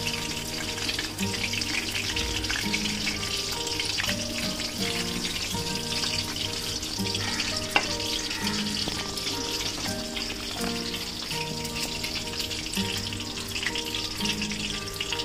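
Chicken lollipops deep-frying in hot oil: a steady sizzle, with one sharp click about halfway through, under background music with a simple stepping melody.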